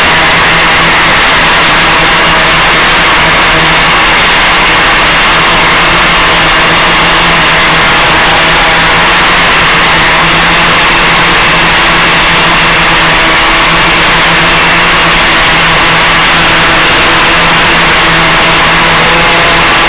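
Steady loud hiss with a low, unchanging hum running through it, carried on the analog FPV video link's audio as it reaches the ground receiver.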